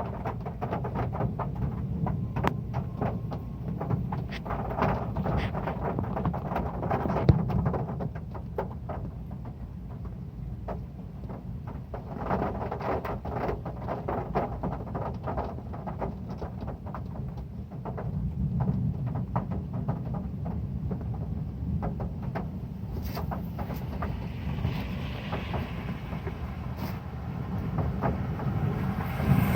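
Heavy rain falling on a metal roof: a dense low rumble thick with sharp drop impacts, growing heavier and lighter in waves.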